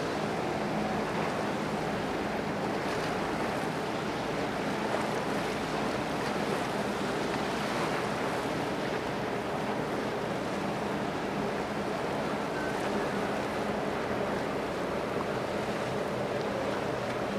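Steady wind and water noise with a low, even hum from a large container ship's machinery as it passes close by.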